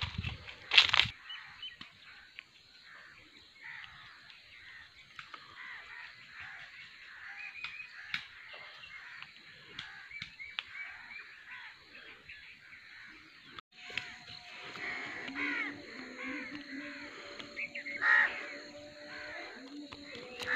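Birds calling in open countryside: a few loud calls in the first second, then steady chirping chatter. After a sudden break about two-thirds of the way in, a steady low hum joins the bird calls.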